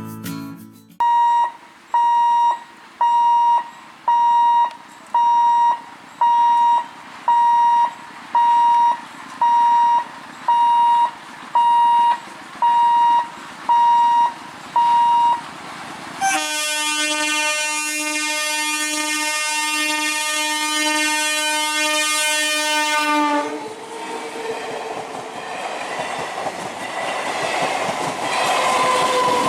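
A level-crossing warning beeper sounds a steady electronic beep about once a second for roughly fifteen seconds. Then an EMU local train's horn sounds continuously for about seven seconds. After it comes the rumble and clatter of the passing train, growing louder near the end.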